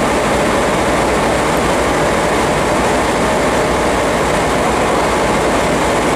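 Steady, even noise from JR Kyushu 815 and 817 series electric trains standing at a station platform.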